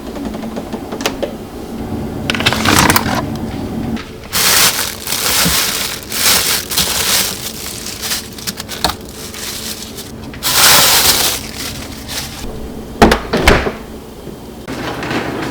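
Kitchen food-preparation sounds: several bursts of hissing noise lasting up to a couple of seconds, and a few sharp knocks, the loudest two close together near the end, over a faint steady hum.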